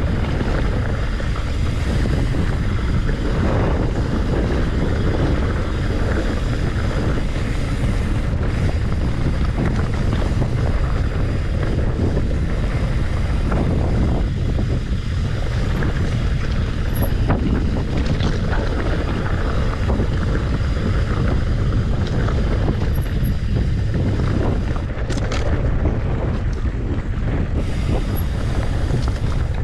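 Heavy wind buffeting the microphone during a mountain-bike ride on a dirt singletrack, with scattered clicks and rattles.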